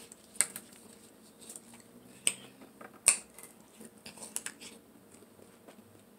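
Eating sounds close to the microphone: a few sharp clicks, the loudest about three seconds in, with softer mouth and utensil noises between.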